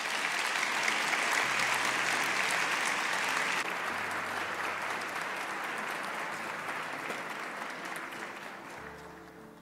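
Audience applauding, strongest in the first few seconds and gradually dying away toward the end.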